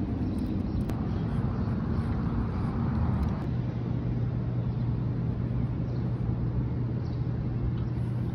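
Steady city street noise from nearby traffic, with a low steady hum that gets stronger about three and a half seconds in.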